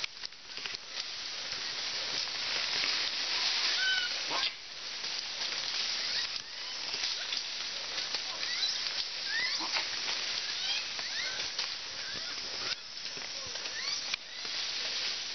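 Jungle forest ambience: a steady high hiss with short rising and falling chirping calls scattered through it, and the hiss dropping away briefly a few times.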